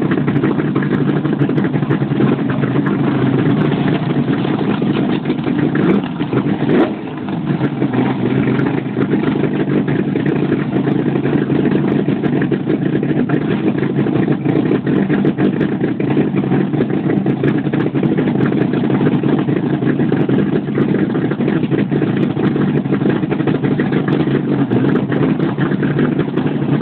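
Dragster engine idling steadily and loudly, with a brief dip and bend in pitch about seven seconds in.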